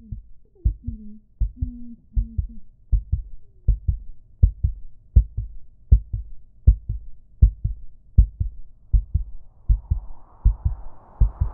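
Heartbeat sound effect: steady double thumps about 80 beats a minute. A muffled voice sounds over the first couple of seconds, and a rising hiss builds in near the end.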